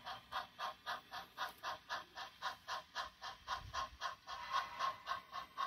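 HO scale model train running on the layout, giving a faint, steady rapid ticking of about five ticks a second with a slight ring to each tick.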